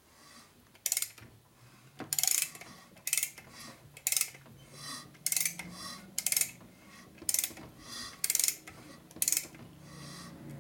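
A ratchet wrench clicking in short bursts about once a second as a rebuilt Harley-Davidson Shovelhead V-twin is turned over by hand against valve-spring tension, checking that the top end turns freely without binding.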